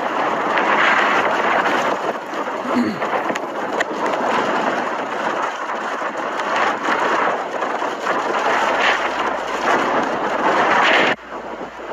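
Blizzard wind blowing hard, a steady dense rushing noise that drops off abruptly near the end.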